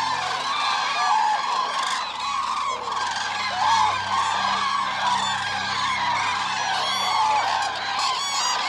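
A flock of Eurasian cranes calling, many calls overlapping without a break.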